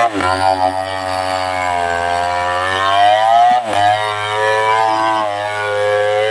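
Two-stroke chainsaw cutting into a large tree trunk, its engine pitch sagging and recovering under load, with two brief sharp dips in speed, one just after the start and one about three and a half seconds in.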